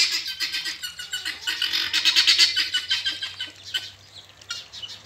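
Male helmeted guineafowl calling: a fast run of short, harsh repeated notes that thins out to a few scattered ones after about three seconds.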